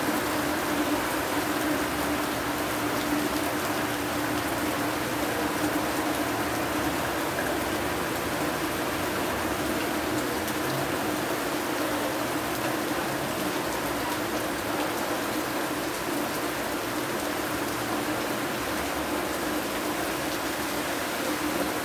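Heavy rain falling steadily, a dense hiss of drops on wet ground, with a steady low hum underneath.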